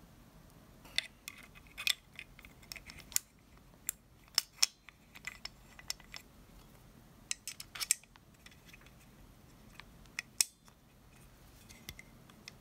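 Irregular sharp clicks and taps of small metal internal parts of a VFC FNC gas-blowback airsoft rifle being handled and fitted, taking up the play around a pin. The loudest click comes near the end.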